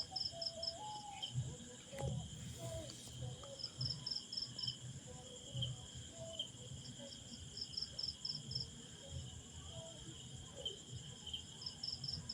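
Insects chirping in groups of quick pulses over a steady high drone. Under them there are faint, irregular knocks and clatter of parts being handled.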